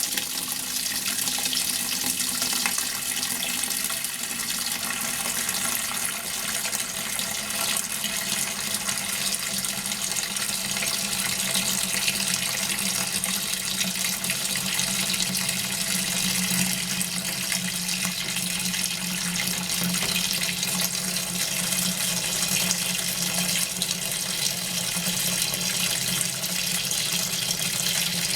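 Hitachi NW-42EF washing machine filling with water: a steady rush of water pouring into the tub, with a low hum that grows stronger about eight seconds in.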